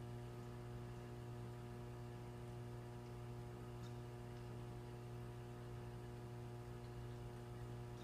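Samsung dishwasher in its fill stage: a faint, steady low hum with a light hiss of water running into the tub.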